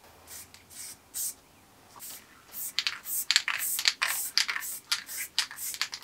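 Aerosol spray-paint can firing short spurts of paint onto a bicycle frame, a few at first, then many quick ones from about halfway in, as the fade colours are worked back and forth.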